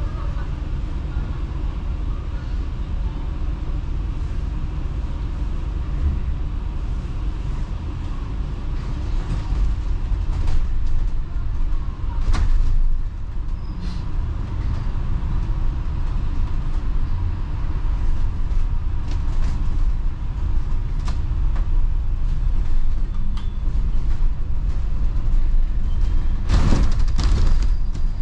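Cabin noise of a moving double-decker bus: a steady low engine and road rumble. A few short knocks and rattles come through it, and a louder burst of noise about a second long comes near the end.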